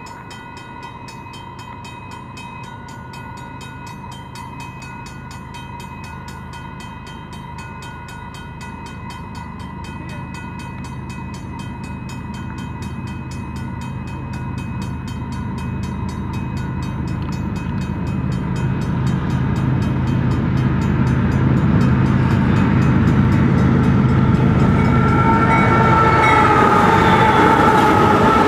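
Level-crossing bell ringing steadily while a freight train led by GE diesel locomotives (an ES44AC and an AC4400CW) approaches, the engine rumble growing steadily louder until the locomotives reach the crossing near the end, where bright tones slide down in pitch as they pass.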